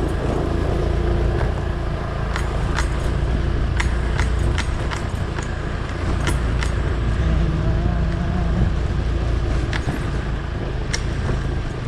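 A motor vehicle running steadily with a low engine rumble, with sharp clicks and knocks scattered through it.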